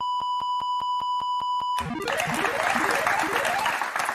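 Game-show word-validation sound effects: a steady electronic beep under a rapid, evenly spaced run of clicks as each letter of the word is confirmed correct, then, a little under two seconds in, a loud noisy swell with three rising sweeps marking the word as found.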